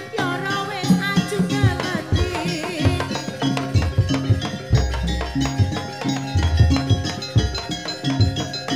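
Jaranan campursari music played live and amplified through a sound system: drums beat a steady rhythm under a held tone and a melody line that bends and wavers in pitch during the first few seconds.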